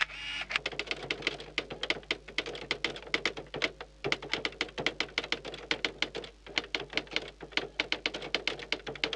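Typing sound effect: rapid key clacks in quick runs, with short breaks about four and six and a half seconds in, as text is spelled out letter by letter.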